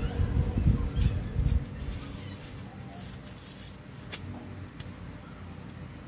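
Used refrigerator compressor, rigged as an air compressor, humming steadily, with handling rumble in the first second and a half and a few light clicks after it. Its output pressure is still weak.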